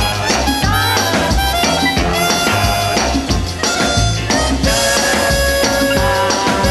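Music with a steady drum beat and held melodic notes.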